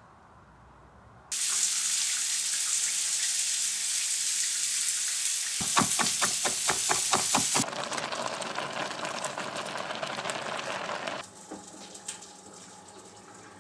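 Food sizzling in a hot frying pan, starting suddenly after about a second and thinning out after about eight seconds. Near the middle, about two seconds of quick chef's-knife chops on a wooden cutting board, about five a second, sound over the sizzle.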